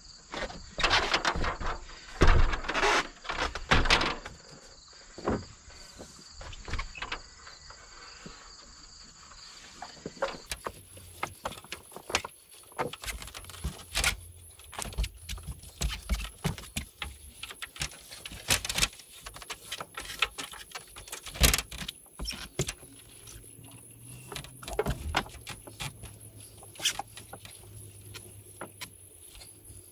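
Scattered clicks, knocks and handling noise, loudest in the first few seconds: a stepladder being set down on a corrugated metal roof and rope being tied around its base.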